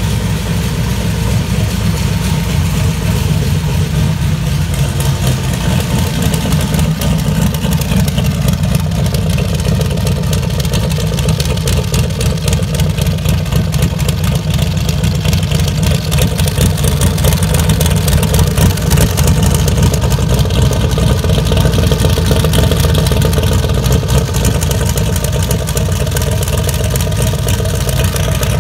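Twin-turbo Dodge big-block V8, a stroked 440, idling steadily through open, unmuffled stacks that rise straight out of the turbochargers.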